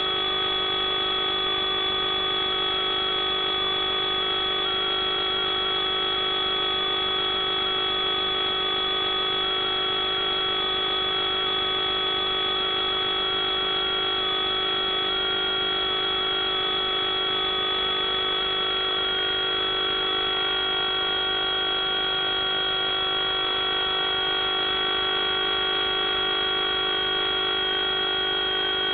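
FPV quadcopter's electric motors and propellers whining steadily in flight. Several held tones sound together, one wavering slightly in pitch as the throttle shifts.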